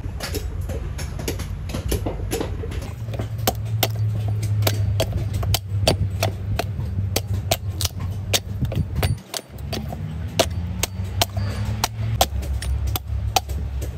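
Heavy knife chopping the fibrous husk off a coconut on a wooden block: quick, regular strikes, a few a second, over a steady low hum.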